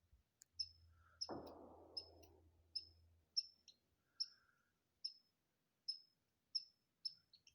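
Squirrel alarm calls: short, sharp clicking chirps repeated evenly, about one every two-thirds of a second. A brief rustling swish comes a little over a second in and fades away.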